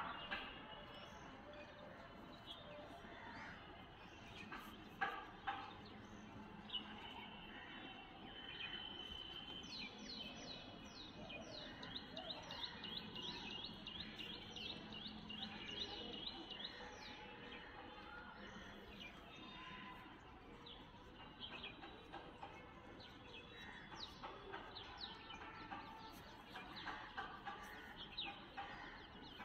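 Birds chirping in long runs of short, quickly falling high notes, over faint outdoor background noise, with a few sharp clicks in the first seconds.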